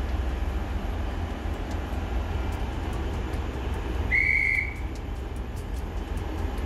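Diesel railcar idling at a platform with a steady low rumble. About four seconds in, a single high, steady tone sounds for about half a second.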